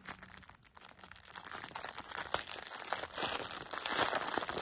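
Plastic packaging being crinkled and torn open by hand to unbox a set of mini monkey noodle fidget toys: irregular crackling that starts faint and grows louder after about a second and a half.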